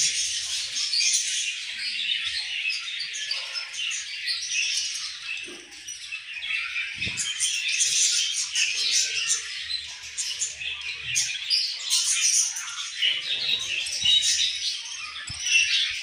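A colony of budgerigars chirping and warbling together: a dense, continuous, high-pitched chatter of many birds at once.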